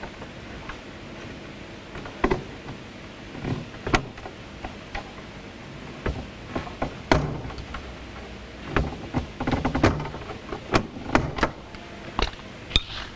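Scattered clicks, taps and light knocks of hand work in a hot tub's control box as the electrical connections are undone, busiest near the end.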